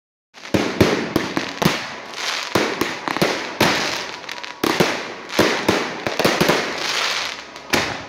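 Fireworks display: aerial shells bursting in a rapid, irregular string of loud bangs, starting about half a second in, each bang trailing off in an echo.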